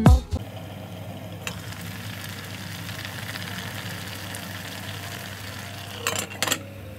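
A pot of noodle soup boiling on the stove: a steady bubbling hiss over a low hum. About six seconds in, two quick clinks as the glass pot lid is lifted.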